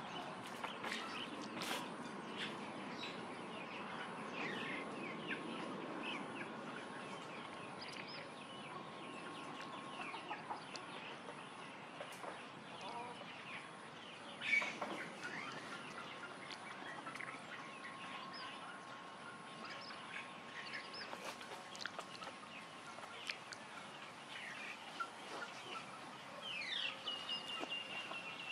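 Background chickens clucking and small birds chirping in short, scattered calls, with a faint steady tone underneath and one brief louder sound about halfway through.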